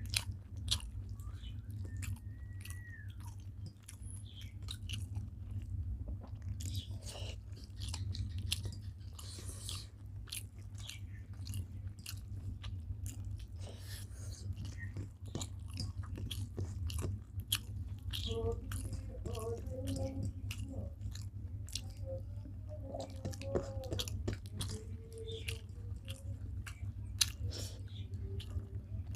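Close-up chewing and mouth sounds of people eating rice and vegetable curries, many small wet clicks and smacks. A steady low hum runs underneath.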